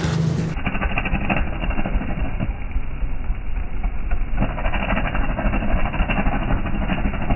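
Stick-electrode arc welding on a truck's rear wheel hub: the arc crackling and sputtering steadily over a low hum. The crackle thins out for a couple of seconds in the middle, then comes back.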